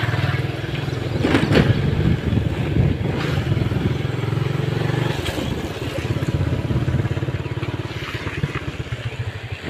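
Motorcycle engine running steadily while the bike is ridden, with a rapid even exhaust pulse.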